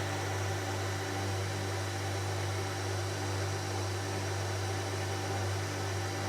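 ТОМ-1У edge sanding machine running, a steady motor hum with an even sanding noise over it.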